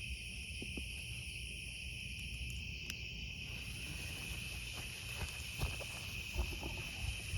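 Insect chorus of crickets chirping steadily in several high-pitched bands, with a few faint clicks in the second half.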